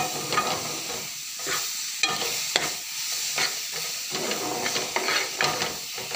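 A metal spoon scraping and knocking irregularly against a frying pan, stirring ripe papaya and semolina as they fry in hot oil, with a steady sizzle underneath.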